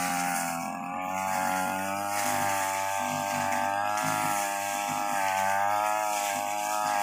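Stihl backpack brush cutter engine running steadily as it cuts grass and undergrowth, its pitch wavering slightly up and down with the load.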